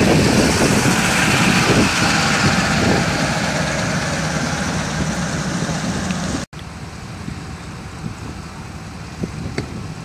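Vehicle engines idling, with a loud hissing rush over them for the first six and a half seconds that cuts off suddenly, leaving a quieter low engine rumble.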